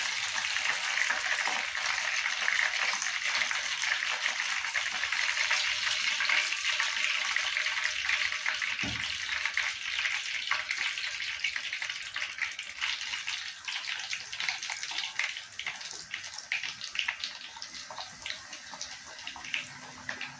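Hot oil sizzling steadily as breaded chicken cutlets deep-fry, with crackling pops that stand out more as the sizzle eases a little in the second half. A single soft knock about nine seconds in.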